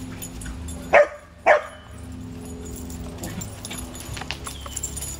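Dog barking twice during rough play, two short, loud barks about half a second apart.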